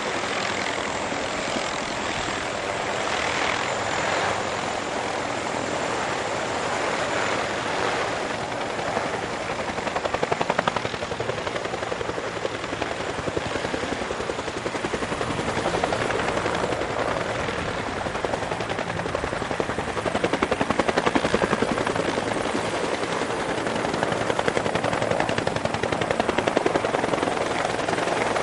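Rotor beat and turbine noise of a close formation of UH-1J and AH-1S Cobra helicopters flying low overhead, with their two-bladed main rotors chopping. The noise swells louder about ten seconds in and again around twenty seconds.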